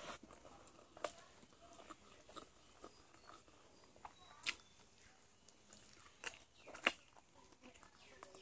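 A person eating chicken close to the microphone: quiet chewing broken by a few sharp crunches and mouth clicks, the loudest about four and a half and seven seconds in.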